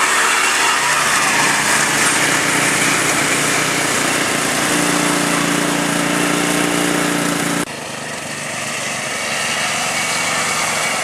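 Four-wheeler (ATV) engine running hard in mud, its revs rising and falling, then held steady for a few seconds. About two-thirds in the sound drops off abruptly, then the engine builds up again.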